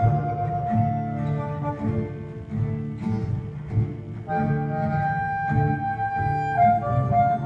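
Acoustic band playing an instrumental intro: two acoustic guitars strumming chords while a harmonica plays long held notes over them.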